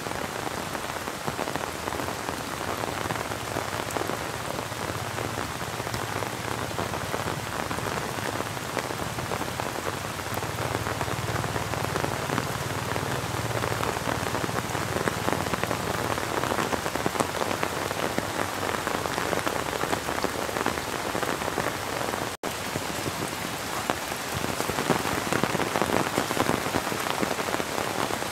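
Steady rain falling, a dense patter of many small drops, with an instant's dropout about two-thirds of the way through.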